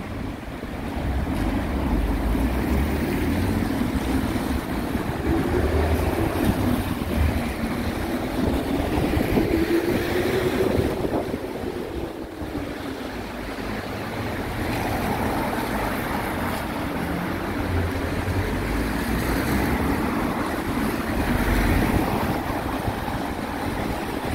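Traffic on a wet street: cars passing with tyre hiss on the wet road, one engine rising and falling in pitch as it goes by about halfway through. Wind gusts rumble on the microphone.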